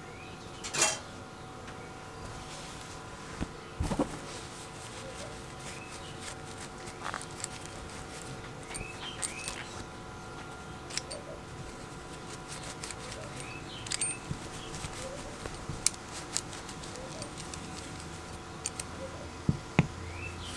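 Small brass-and-steel nightlatch bolt parts clicking and clinking as they are handled, rubbed with a cloth rag and set down on the workbench, with a sharp knock about four seconds in and a few more clicks near the end, over a steady hum.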